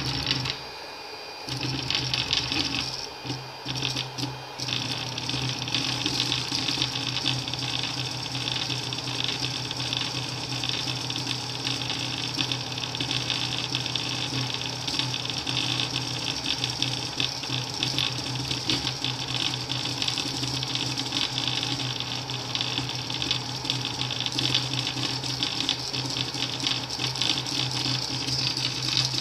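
Anet E16 3D printer's stepper motors driving the print head in rapid short moves, a dense fast chattering over a steady hum, with a few brief pauses in the first few seconds and continuous after that. The printer is misbehaving, laying filament outside the heated bed instead of printing the model that was sent to it.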